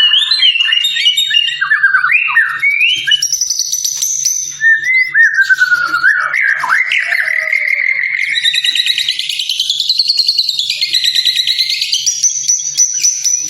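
White-rumped shama (murai batu) singing a continuous, varied song: loud whistled phrases and pitch glides, with fast trilled runs in the second half.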